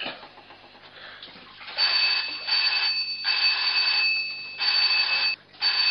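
A loud electric ringing, like an alarm or phone bell, starting about two seconds in and pulsing on and off in short bursts, two steady high tones over a rasping hiss, cutting out briefly near the end.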